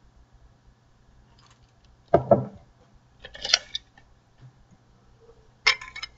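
Stanley tape measure being handled and its steel blade pulled out, making a metallic rattle and clatter. A single knock comes about two seconds in, and a sharp clatter near the end.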